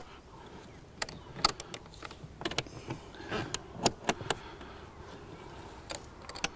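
Light, scattered clicks and knocks, a dozen or so at irregular intervals, as a composite Langstroth hive lid is handled and seated on the top super.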